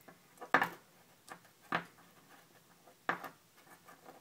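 Small metal hub parts clicking and clinking as the needle bearing is pulled from a G-Sport BMX driver and handled: a handful of sharp, separate clicks, three of them louder, about a second apart.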